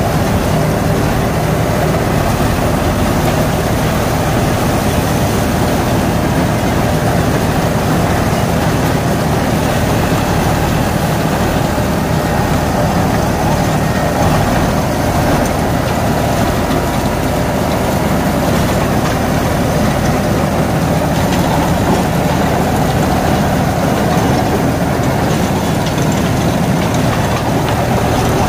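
Deutz-Fahr Agrolux 80 tractor's diesel engine running steadily under load, driving a Shaktiman Tusker rotavator that churns through banana stalks and soil.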